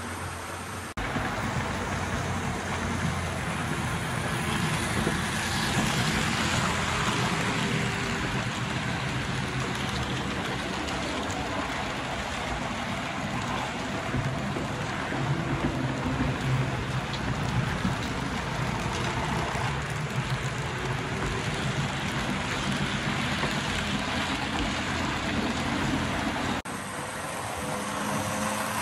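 Model passenger train running on its track: a steady rattle of wheels on rails over a low motor hum. It is louder from about a second in until near the end.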